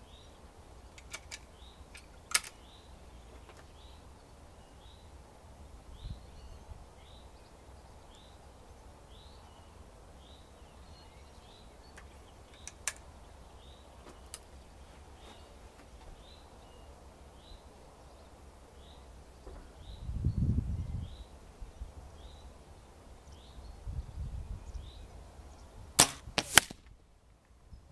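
A .22 Weihrauch HW97 KT spring-piston air rifle fires once near the end: a sharp crack, followed about half a second later by a second crack. Earlier there are a few scattered sharp clicks. A small bird chirps steadily in the background.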